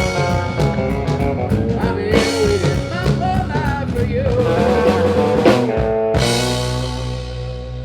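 Live country band playing the instrumental end of a song: a lead instrument solos over guitar, bass and drums, then the band hits a final chord about six seconds in that rings out and fades.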